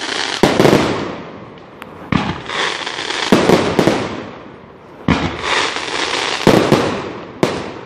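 Aerial firework shells bursting in a display: about six loud bangs at uneven intervals of one to two seconds, each followed by a trailing noisy tail as it dies away.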